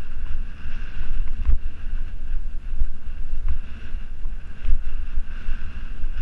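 Wind buffeting the action camera's microphone while it moves along a road: a loud, gusty low rumble, with a faint steady high whine underneath.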